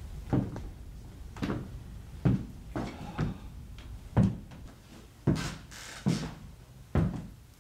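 A series of separate thuds or knocks, about one a second, over a low background hum.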